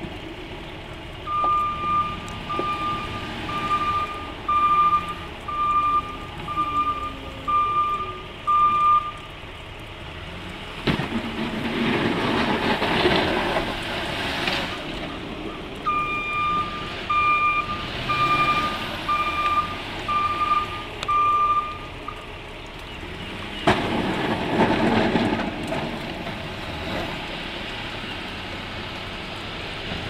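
Plow truck's backup alarm beeping in two runs of evenly spaced beeps, about eight and then about seven, over the running engine. Twice in between, a louder rushing surge as the truck drives forward pushing deep snow.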